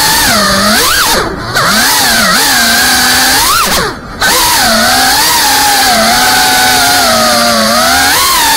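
FPV quadcopter's brushless motors and propellers whining, the pitch rising and falling with the throttle. The whine drops out briefly twice, about a second in and about four seconds in, as the throttle is cut for flips.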